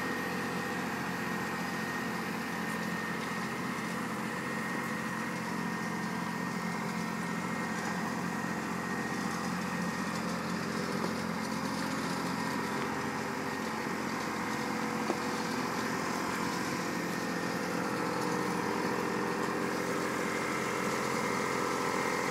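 Blue compact loader tractor's engine idling steadily, an even hum that holds the same pitch throughout.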